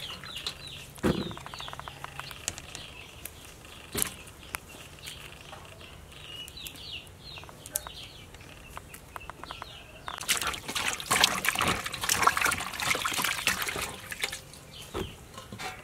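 Small birds chirping in a quick, repeated run of short calls, with scattered clicks and knocks. About ten seconds in, a few seconds of louder rustling, splashing noise takes over.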